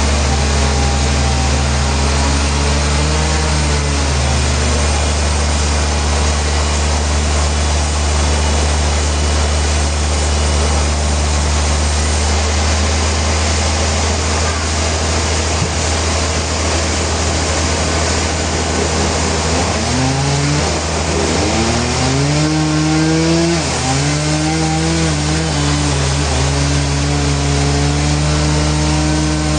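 Sawmill saw cutting through a large trembesi (rain tree) hardwood log: a steady machine drone under a loud hiss of sawing. Its pitch sags and recovers a few times about two-thirds of the way in, as the blade takes load.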